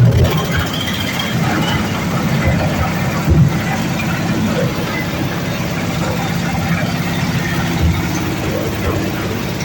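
Oil-palm fruit chopping machine running steadily, with an even low mechanical hum.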